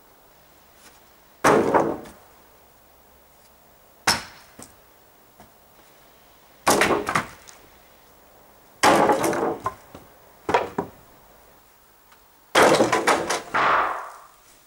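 Wooden boards and timbers thrown from an upper-floor doorway, crashing and clattering onto a pile of lumber below: about six crashes a couple of seconds apart, the last one the longest.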